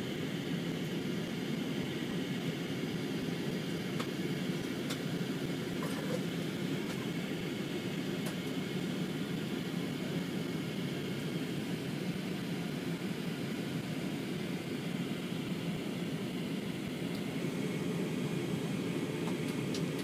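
Steady cabin noise inside an Airbus A320 airliner on approach: an even low rumble of jet engines and airflow over the fuselage, with a few faint clicks.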